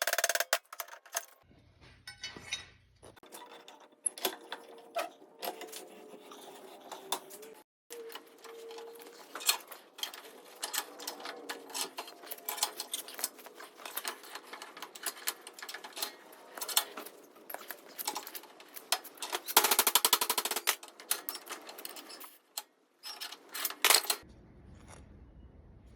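Welding arc crackling in irregular runs with a few brief breaks, as the bent steel hinge piece is welded.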